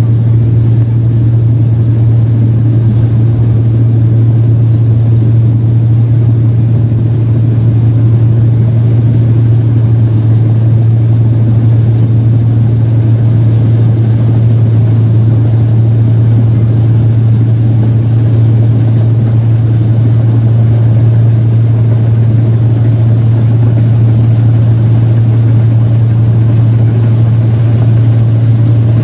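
Engine of a 1545 rice combine harvester running steadily under load while harvesting, a loud, even drone with no change in speed.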